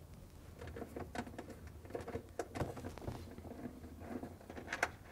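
Hands working a 1/4 inch nut driver on a refrigerator's plastic freezer ice maker: a run of small clicks, scrapes and rattles as the mounting screws are turned out and the part is handled, with a couple of sharper clicks, the loudest near the end.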